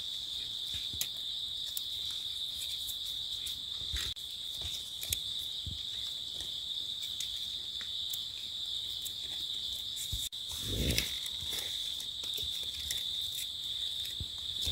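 Steady high-pitched drone of insects, crickets or cicadas, in the forest. Occasional rustles and knocks come through it, the loudest about eleven seconds in.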